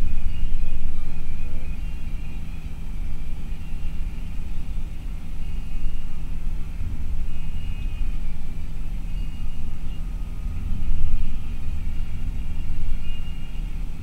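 Cabin noise inside a moving bus at highway speed: a steady low rumble of engine and tyres that swells and eases.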